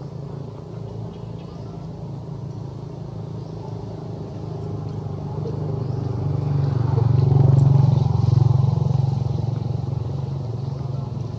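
A motor vehicle engine drones steadily. It grows louder to a peak about two-thirds of the way through, then fades, as a vehicle does when it passes.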